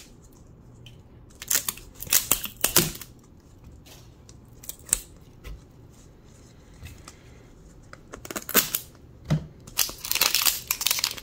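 Light scattered clicks and taps as toy pieces are handled and set down. Near the end, dense crinkling starts as the wrapper of an LOL Surprise ball is peeled open.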